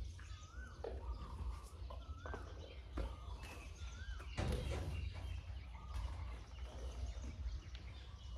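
An Asian elephant's trunk knocking and rustling in a plastic feed bucket as it finishes its fruit, with a louder rustling burst about halfway through. A bird repeats a short warbling call every couple of seconds.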